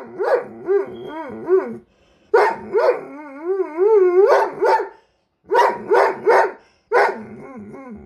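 A large black dog barking at close range in quick clusters of two or three sharp barks. Between the clusters it howls with a warbling, up-and-down pitch, the longest howl about halfway through.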